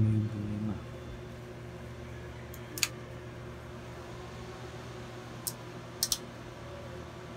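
Steady low electrical hum from a powered-up Crest Audio CA6 professional power amplifier that is stuck in protect mode. Four short, sharp clicks break in: one about three seconds in, one at five and a half seconds, and a quick pair just after six seconds.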